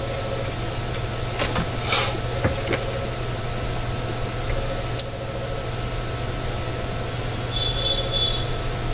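Desktop PC running a Cinebench CPU benchmark, its cooling fans giving a steady hum with a few steady tones in it. A few short clicks come in the first three seconds and once again near the middle.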